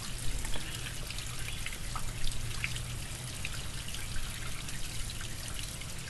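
Running water trickling steadily, with scattered small drips and a low steady hum underneath.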